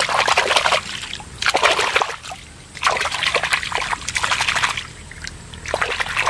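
A hand splashing and slapping shallow water in four bursts of a second or so each, with short pauses between them.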